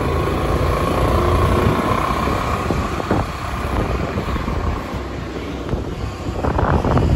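Low steady rumble of a moving scooter's engine and road noise, with wind rushing over the microphone while riding.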